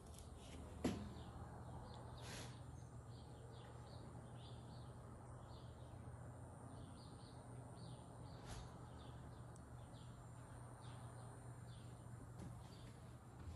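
Faint bird chirps, short and repeated irregularly, over a low steady hum, with a single sharp knock about a second in.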